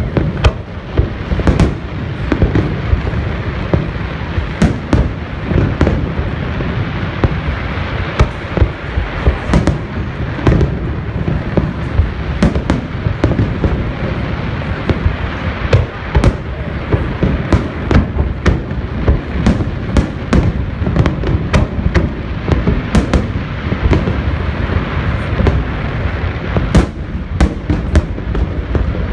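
Aerial firework shells bursting in a rapid, continuous barrage: sharp bangs and crackles several times a second over a steady, deep rumble of overlapping booms.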